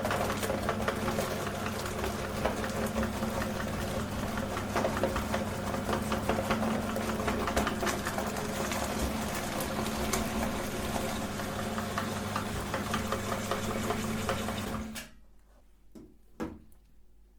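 Electric meat grinder running steadily with a constant motor hum, then switched off about 15 seconds in, followed by a couple of faint knocks.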